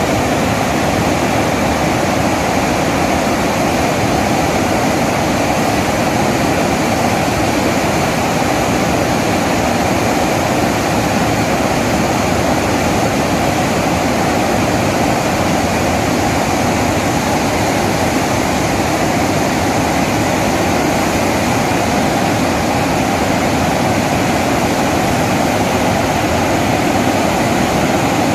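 Water pouring through the open spillway gates of the Gangrel Dam and crashing into the river below: a loud, steady rushing with no change.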